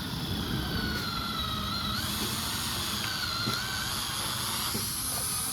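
Small electric motor of a radio-controlled toy construction vehicle whining over a steady hiss, its pitch wavering and shifting up and down as the load changes.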